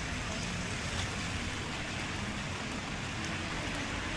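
Rain falling steadily: a constant, even hiss.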